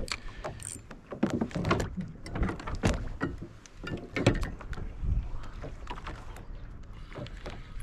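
Irregular knocks and clicks of fishing rods and reels being handled aboard a small boat, over a low rumble.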